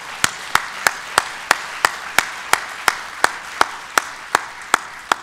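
Audience applauding in a hall, with one set of loud, evenly spaced claps about three a second standing out above the general clapping.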